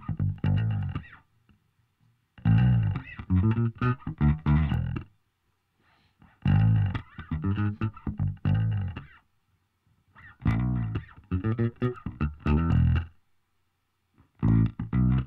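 Electric guitar and bass music playing back in four phrases of a few seconds each, with short silent gaps between them, heard through the Surfer EQ2's harmonic filter.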